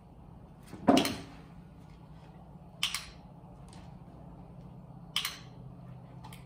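Three sharp clicks or knocks a second or two apart over a low steady hum. The first, about a second in, is the loudest and has a short hollow ring. The later two are crisper and each comes as a quick double click.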